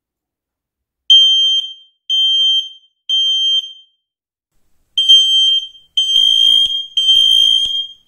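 X-Sense XS01-WR smoke alarm going off, set off by test smoke. About a second in, its high-pitched beep starts in groups of three: three short beeps a second apart, a brief pause, then three longer beeps.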